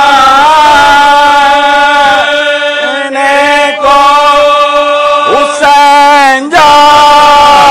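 Male voices singing a marsiya in soz khwani style, with no instruments: a lead reciter with supporting voices holding long, wavering notes that move to a new pitch several times.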